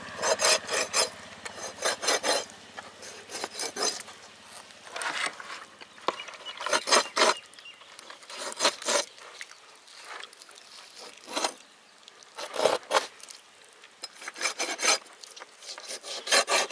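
Large knife scoring skinned rabbit carcasses on a steel tray: quick runs of short cutting and scraping strokes, the blade rasping through the meat onto the metal beneath, with brief pauses between runs.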